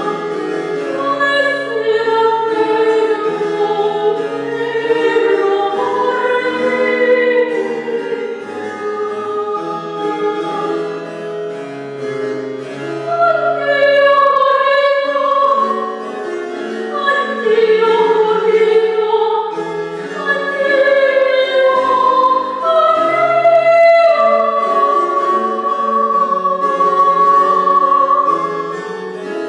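Woman singing a baroque aria in classical operatic style, accompanied by a harpsichord, holding one long note near the end.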